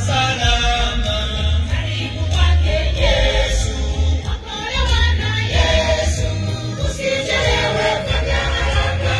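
Church choir singing a Swahili gospel song together, over a heavy, steady bass beat.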